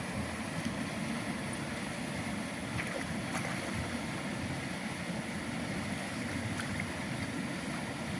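Steady rumbling wind noise on the microphone with outdoor water sounds, and a few faint ticks.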